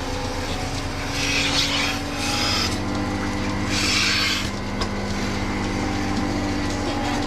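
Milking equipment running with a steady low pulsing hum, and three short hisses about a second in, at about two and a half seconds, and around four seconds.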